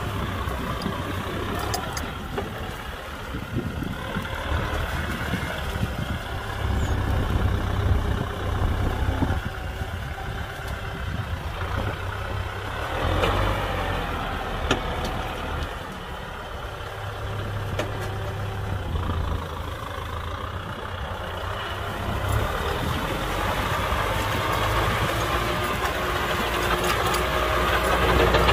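Kubota M6040 SU tractor's diesel engine running steadily under load while pulling a plow, its note swelling and easing a little.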